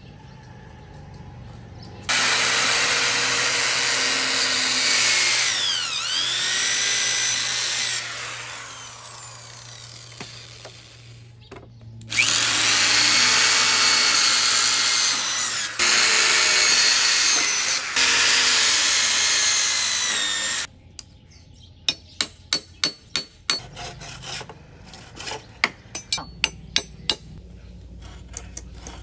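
Handheld electric drill boring into a bamboo chair frame in several long runs, its whine rising and falling as the motor speeds up and slows. Near the end comes a bow-frame hand saw cutting bamboo in quick strokes, about two a second.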